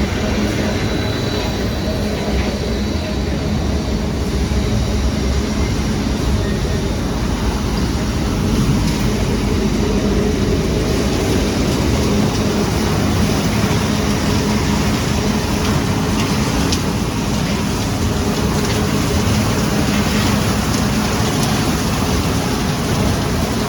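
Industrial machinery running steadily: a continuous mechanical rumble with a constant low hum throughout.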